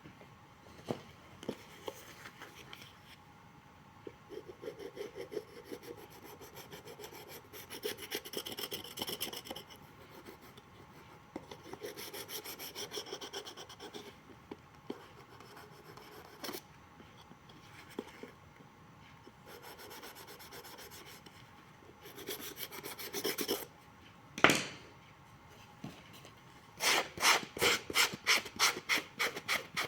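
Hand rasping and scraping on a shoe sole in scattered passes, roughing it up. A sharp knock comes about 24 seconds in, then fast even strokes, about four a second, near the end.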